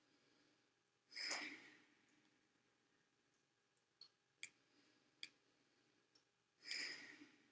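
Two breaths about five and a half seconds apart, each lasting about half a second, in an otherwise near-silent room, with a few faint small clicks between them.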